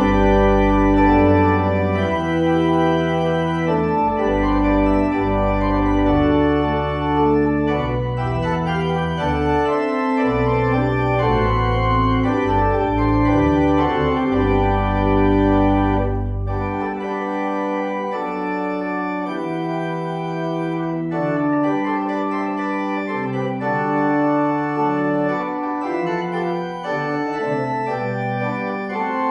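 Organ postlude: full held chords with moving lines, deep bass notes under them that stop a little over halfway through, the upper chords carrying on.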